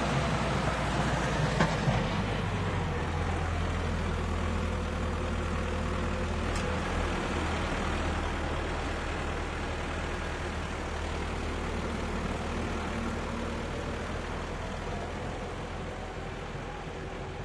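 Tractor engine idling with a steady low hum. A few sharp knocks come in the first two seconds, and the sound slowly grows quieter toward the end.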